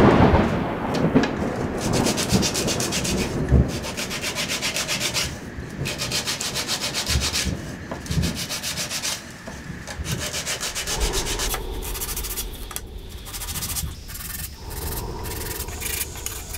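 Small scroll-sawn wooden pieces being hand-sanded, rubbed back and forth on a sheet of sandpaper laid on a workbench. The strokes come in quick runs with short pauses between them, and there are a few soft knocks of wood on the bench.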